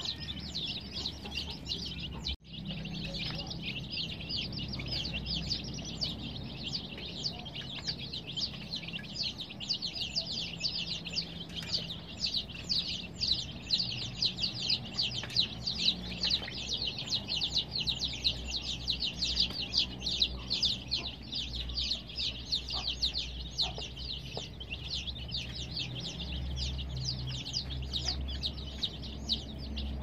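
A brood of baby chicks peeping all together, a dense, unbroken mass of short high chirps overlapping one another. The sound cuts out for an instant about two seconds in.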